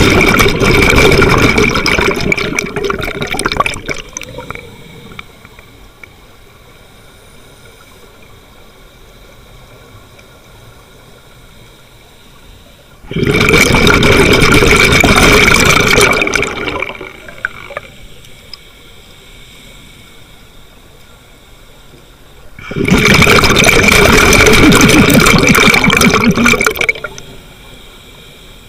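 Scuba regulator exhaust heard underwater from the diver's own mask: three long rushes of exhaled bubbles, each about four seconds, roughly ten seconds apart, with quiet between the breaths.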